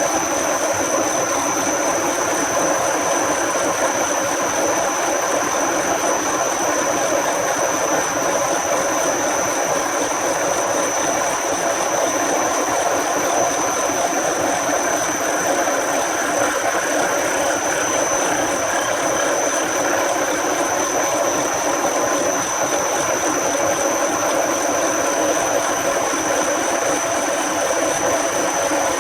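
Metalworking machine tool running steadily: a constant mechanical whirr with a thin, high, steady whine throughout.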